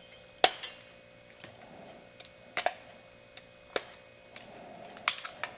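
Sharp clicks and snaps, about seven spread over a few seconds, from handling a plastic tube of DAP Dynaflex sealant as its nozzle is cut and readied for the caulk gun.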